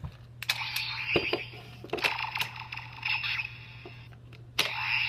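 Power Rangers Super Samurai Black Box toy playing its electronic sound effects through its small, tinny speaker, in three bursts each set off by a sharp click.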